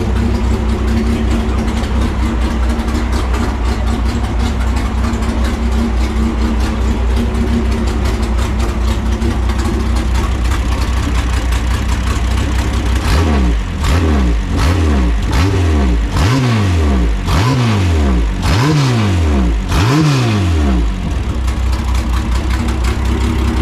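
Air-cooled VW flat-four drag engine running on straight methanol, idling steadily shortly after start-up. About halfway through it is blipped sharply six or seven times in quick succession, each rev rising and falling, before it settles back to idle.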